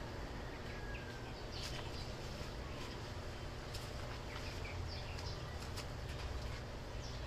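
Birds chirping in short, scattered calls over a steady low background rumble.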